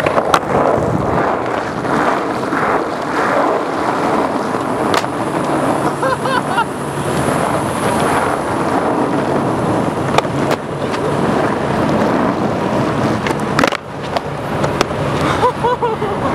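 Skateboard wheels rolling on wet asphalt, a steady rolling rumble and hiss, with a few sharp clacks of the board along the way.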